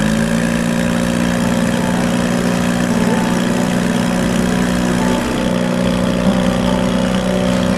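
Small outboard motor running at a steady speed, driving the boat along with water churning behind it; its hum holds a level pitch.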